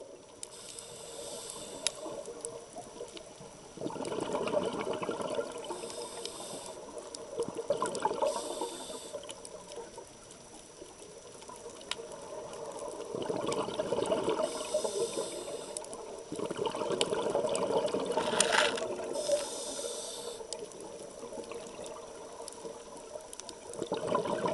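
Underwater sound of scuba breathing: bursts of bubbles from regulator exhalations, each lasting a few seconds and returning every several seconds, with hissing between them.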